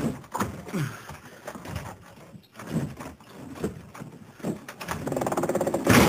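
A stuck wooden door being yanked and rattled in its frame: a series of knocks and short creaks, building into a fast continuous rattle near the end and ending in a loud crash.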